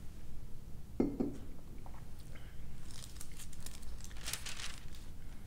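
Handling noise: a soft knock about a second in, then about two seconds of crinkling, rustling sounds.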